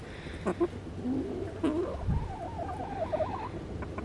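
Hens vocalizing softly: a few short low clucks, then a wavering trill a little over two seconds in.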